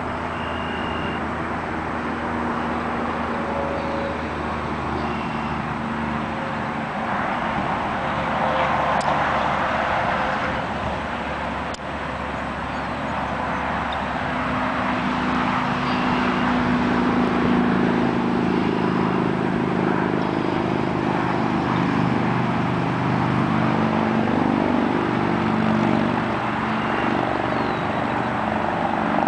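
Motor vehicle engines running steadily, with a hum that strengthens in the second half and a louder swell of road noise about eight to ten seconds in.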